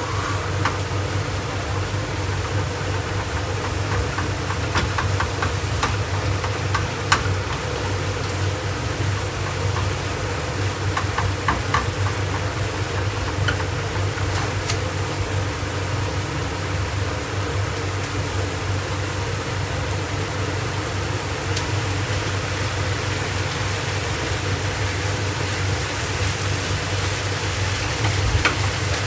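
A steady low mechanical hum with scattered light clicks and taps of cooking utensils, bunched about five to seven seconds in and again around eleven to twelve seconds in.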